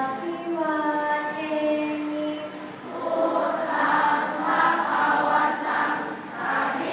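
One voice intones a slow chanted phrase in long held notes, then from about three seconds in a large group of children's voices joins in unison, chanting together more loudly.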